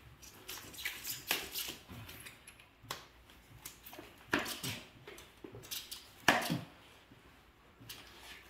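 A kitchen knife cutting and scraping at the foam packaging and tie wrapped around a new e-bike's frame: irregular scrapes and rustles, with a sharper one about six seconds in.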